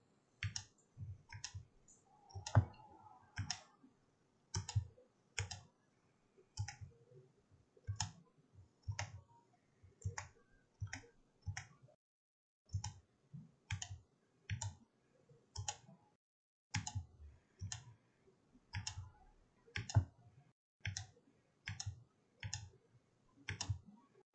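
Computer mouse button clicking over and over at an uneven pace, roughly one to two clicks a second with a few short pauses, as sketch lines are clicked away one at a time in CAD software.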